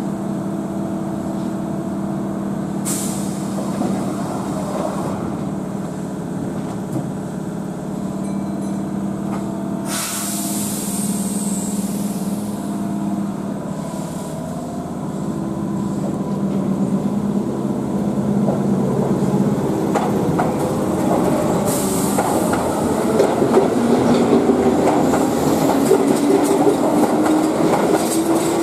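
Keihan electric commuter train at a station platform: a steady electrical hum, with sharp bursts of compressed-air hiss about three and ten seconds in. The train then pulls away, its traction motor whine rising steadily in pitch as it accelerates and wheel noise builds toward the end.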